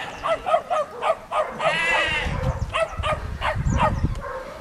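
Kelpie puppies yapping in quick runs of short, high barks, with a sheep bleating once about two seconds in.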